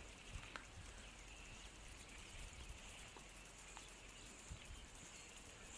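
Near silence: faint outdoor ambience with a few soft ticks.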